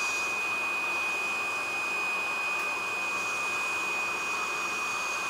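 Dental suction running steadily, a constant hiss with a high whistle, as the suction tip in the patient's mouth draws off the irrigating solution from the root canals.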